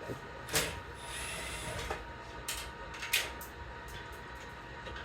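Metal hardware of an equipment rack being handled while network switches are mounted: sharp clanks, the loudest about half a second in and about three seconds in, and a brief scrape in between, over a steady hum.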